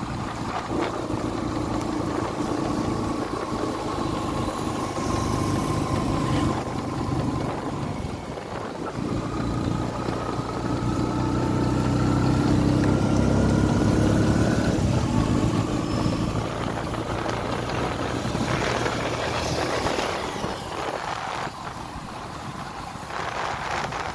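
Small motorcycle engine running under way as the bike rides along, getting louder towards the middle and easing off later, over a steady hiss of wind and tyres on a wet road.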